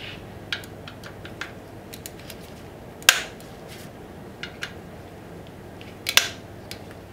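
A 4 mm Allen key turning the bolts of a motorcycle's front fork protector: light metallic clicks and ticks, with two sharper clicks about three seconds apart.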